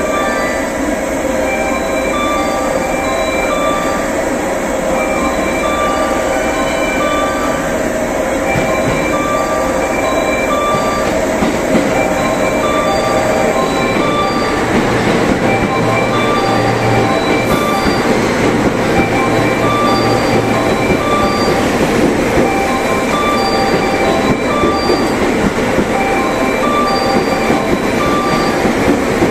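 The Sunrise Seto, a 285-series electric sleeper train, pulling into the platform. Its running noise thickens and grows louder about halfway through as the cars come alongside. A repeating electronic chime of short high tones sounds throughout.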